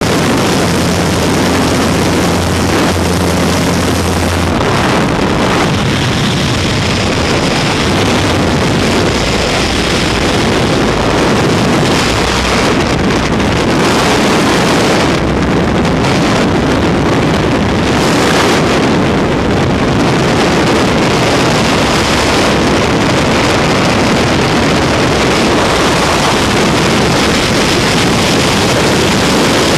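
Aircraft engine drone and wind at the open door for about the first four seconds, then, after the exit, a steady loud roar of freefall wind buffeting the camera microphone.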